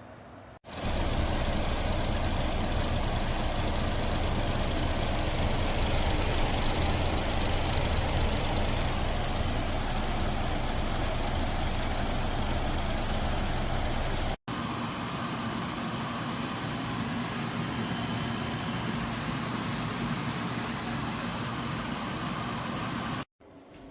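Portable air conditioner running: a steady fan whoosh over a low compressor hum. About fourteen seconds in the sound cuts off abruptly and comes back a little quieter and different in tone, and it cuts off again just before the end.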